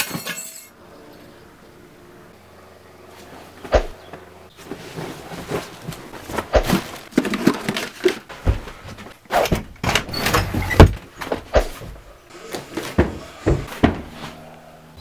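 Irregular knocks, thuds and rustling of someone moving about and handling objects, sparse at first and coming thick and fast in the second half.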